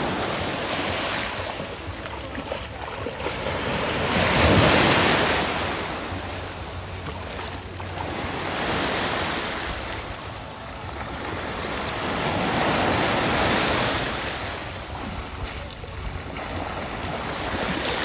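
Small waves washing up on a sandy beach, the surf swelling and fading every few seconds and loudest about a quarter of the way in, with wind rumbling on the microphone.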